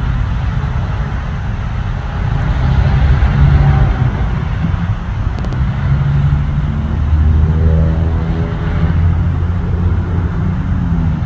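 Steady low engine rumble, with a pitched whine of several tones swelling in about seven seconds in and fading again a couple of seconds later.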